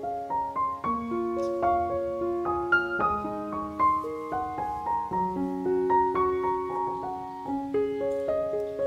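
Soft background piano music: a gentle melody of held notes over a slow accompaniment.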